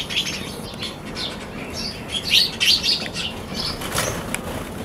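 Sparrows chirping in quick, short, high notes, busiest around two to three seconds in, with a brief wing flutter about four seconds in.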